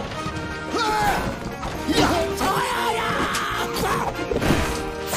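Movie soundtrack music with several sudden crashes and thuds, about four, mixed through it.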